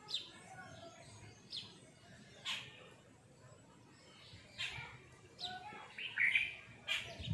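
Cotton bath towel rustling in several brief swishes as it is unwrapped from long wet hair and pulled off the shoulder, with birds chirping in the background.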